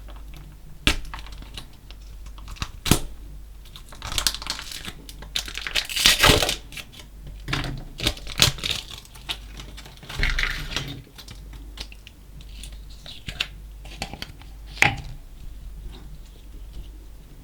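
Slime mixed with small coloured particles being squeezed and worked by hand: irregular crackling and squishing with sharp pops and clicks, loudest about six seconds in.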